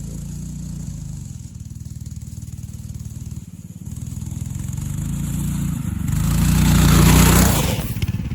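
Dirt bike engine running on a track, getting louder from about four seconds in to its loudest around seven seconds, then easing off.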